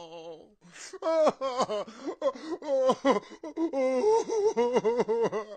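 A man sobbing: a sharp gasping intake of breath just under a second in, then a run of broken, pitched sobs in quick succession.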